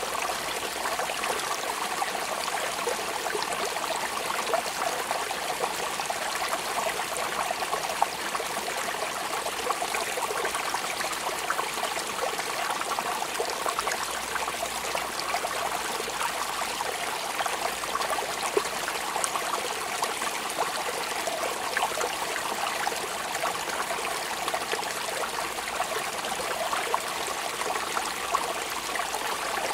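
Steady rain falling: a dense, even patter of drops with the odd louder drop.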